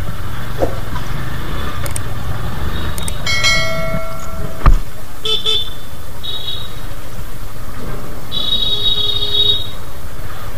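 Motorcycle ride in traffic: a steady low rumble of engine and wind, with vehicle horns honking, first one longer horn about three seconds in, then three short, higher-pitched honks over the next six seconds. A sharp knock just before halfway is the loudest sound.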